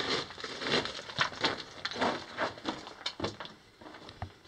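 Footsteps crunching and scuffing on a loose rock and gravel floor, an irregular series of steps that thins out near the end.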